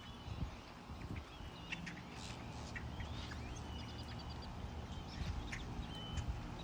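Several birds chirping and calling, with short whistled notes and a quick run of repeated chirps partway through, over a low rumble.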